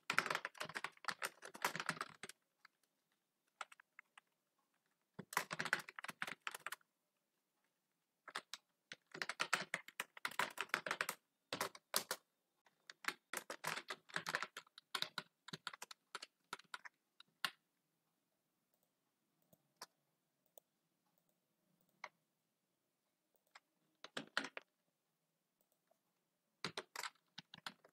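Typing on a computer keyboard: quick runs of keystrokes in bursts of a second to a few seconds, separated by silent pauses.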